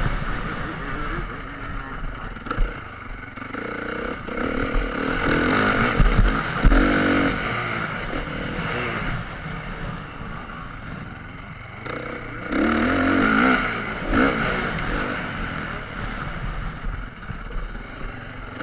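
Motocross dirt bike engine, heard from a camera mounted on the bike, revving up and dropping back again and again as the rider accelerates through the track; the loudest pulls come about six seconds in and again around thirteen seconds.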